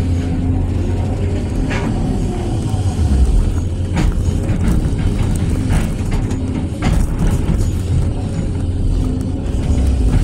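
Excavator's diesel engine running steadily under load while the bucket digs and lifts soil and rock, with a few sharp knocks of the steel bucket against the ground and load.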